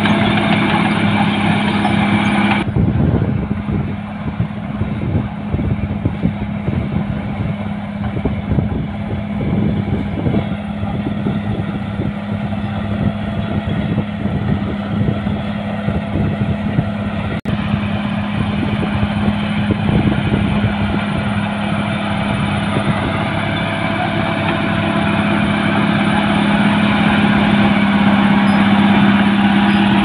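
Caterpillar D6R crawler bulldozer's diesel engine running steadily under load as it pushes soil with its blade, over the irregular clatter of its steel tracks. Near the end a rising whine is heard.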